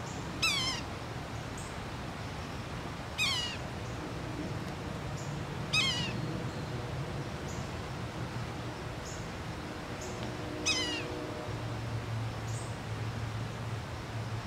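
Yellow-bellied sapsucker giving its mewing call four times, a few seconds apart; each call is short and falls in pitch.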